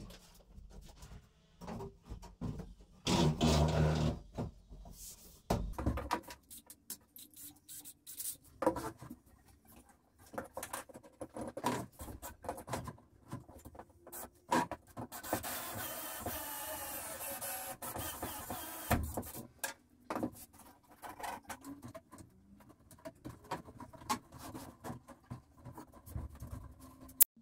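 Workshop assembly sounds: scattered knocks and scrapes of wood being handled, with a louder bumping noise about three seconds in. Past the middle, a cordless drill runs steadily for about four seconds, driving a screw into the pine bench frame.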